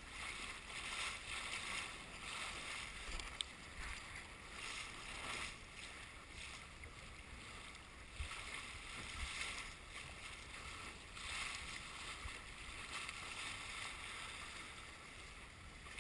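Water rushing along a sailboat's hull as it sails through waves, the rush swelling and fading every second or two.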